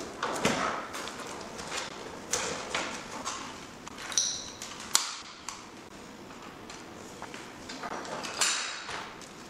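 Coiled camera cables and their plug connectors being handled and plugged into the back of a DVR on a table: irregular light clicks, knocks and rustles, with two brief ringing clinks, about four and eight and a half seconds in.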